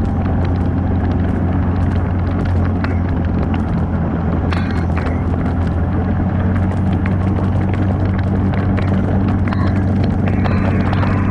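Off-road 4x4 vehicle's engine running steadily while driving on a trail, with scattered knocks and rattles from the rough ground.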